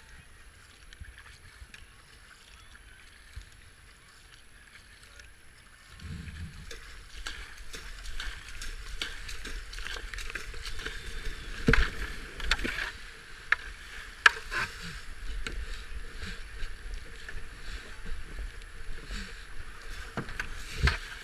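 Racing kayak paddled across flat river water, with light paddle splashes. About six seconds in, louder rushing and splashing water takes over, with sharp knocks and splashes as the kayak runs down a shallow weir spillway; the loudest come about halfway through.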